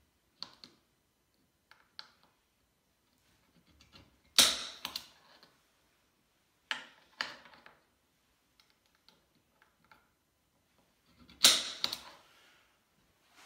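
Small aluminum brackets clacking and knocking against the solar panel's frame and the bench as they are handled and positioned for marking: a handful of sharp clacks, the loudest about four seconds in and again near the end, with fainter clicks between.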